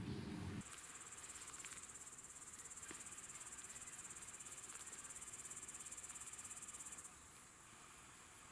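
Crickets chirring: a faint, steady, high-pitched trill of fast pulses, which drops away about seven seconds in. Just after the start, a low rumble cuts off abruptly.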